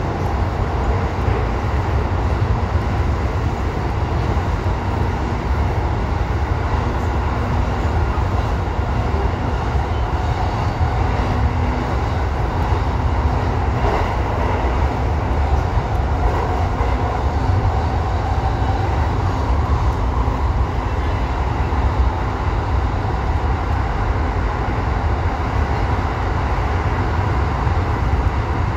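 Electric commuter train running through a tunnel: a steady, heavy rumble of wheels on rail, heard from inside the front car.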